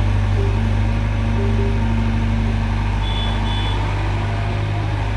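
Diesel engines running steadily: a Mahindra tractor idling close by and a Caterpillar mini excavator working as it loads soil into the tractor's trolley. Two short high beeps sound about three seconds in.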